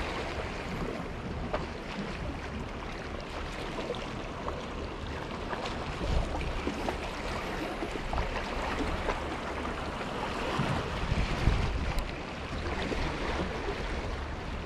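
Wind and lapping water at the harbour's edge: a steady wash of noise, with a few low gusts buffeting the microphone about six and eleven seconds in.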